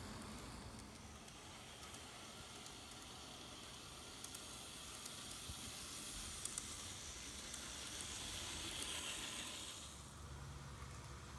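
N-gauge model train running on its track: a faint hissing whir from the motor and wheels that grows as the train approaches and falls away suddenly near the end, with a few light clicks.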